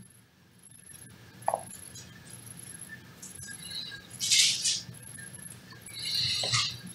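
Quiet pause in a room with two soft, short rustles, about four seconds in and again near the end, and a brief faint tone about a second and a half in.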